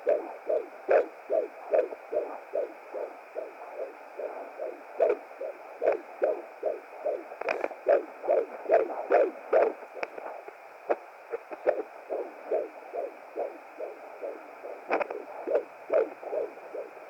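Fetal heartbeat at about 17 weeks' gestation heard through the speaker of a Hi Bebe BT200 home fetal Doppler. It is a fast, very regular pulse of about two and a half beats a second, roughly 150 a minute, over a steady hiss, with a few sharp clicks along the way.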